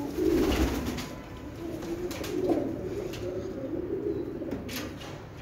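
Several domestic pigeons cooing, their low warbling calls overlapping one another, with a few short clicks in between.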